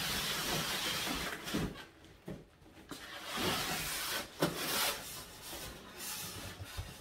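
Cardboard box and white foam packing scraping and rustling as a boxed table saw is slid out of its carton, with a few light knocks. The scraping is steadiest in the first two seconds, then comes in short spells.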